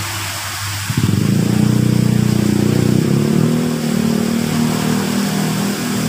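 Steady rush of a small garden waterfall splashing into its pond. About a second in, a loud engine comes in suddenly and keeps running with a steady pulsing hum, louder than the water.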